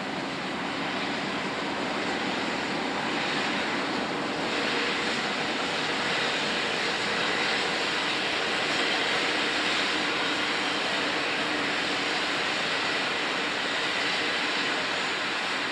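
GM-class streamliner diesel locomotives GM10 and GM27 passing under power with their train: steady diesel engine note mixed with wheel and rail noise. It grows a little louder over the first few seconds, then holds steady.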